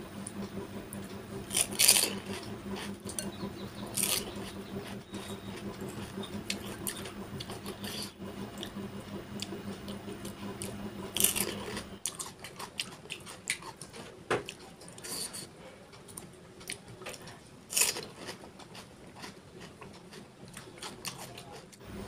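Close-up handling of crisp, hollow pani puri shells: scattered light crackles and taps, with a few louder crunchy clicks. A steady low hum runs under the first half.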